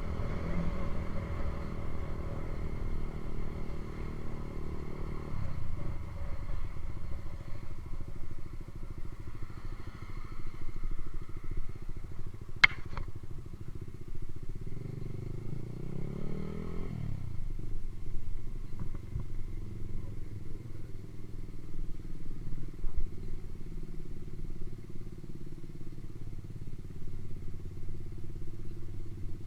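Honda CB150R's single-cylinder engine running through a Ronin aftermarket exhaust, mostly holding a steady idle. About halfway through it is revved once, the pitch rising and falling back, shortly after a single sharp click.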